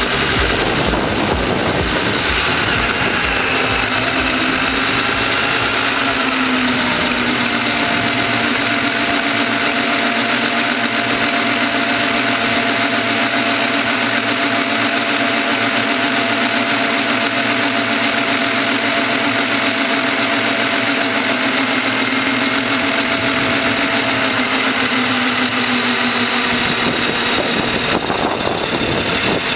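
Axial Wraith 1/10-scale electric rock crawler's motor and geared drivetrain whining as the car drives over asphalt, the pitch drifting slowly up and down with speed over a steady rushing noise, easing off near the end.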